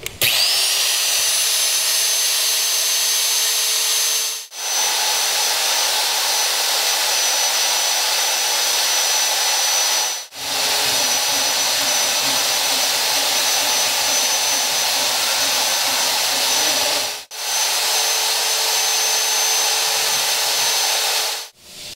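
The 1100 W electric motor of an HC-127 pipe hole cutter switching on and spinning up to a steady high-pitched whine, then running continuously under power. The sound breaks off abruptly three times and resumes. In the later part a lower rumble joins it as the hole saw is fed down onto the metal pipe to start cutting.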